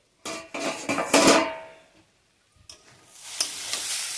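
A steel pan lid clattering with a metallic ring as it is handled and set down, then grated beetroot sizzling in a steel kadai from about three seconds in, with a spatula scraping as it is stirred.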